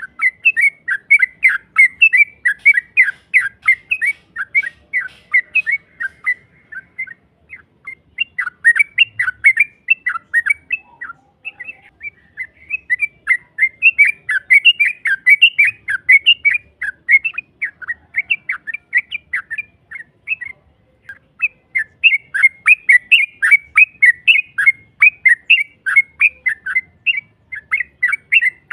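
Trucukan (yellow-vented bulbul) singing its long rolling 'ropel' song: long runs of rapid, sharp chattering notes, about five or six a second, broken by a few short pauses.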